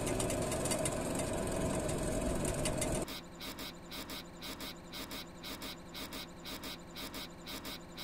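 Worn shock absorber rubber bushings knocking metal on metal as the car is driven, heard as rattling knocks over road and engine noise. About three seconds in it cuts to a quieter, evenly repeating knocking from the worn lower shock absorber bushing.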